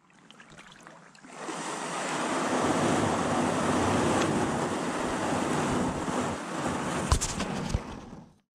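Steady rushing of water, fading in after about a second, with two short knocks near the end.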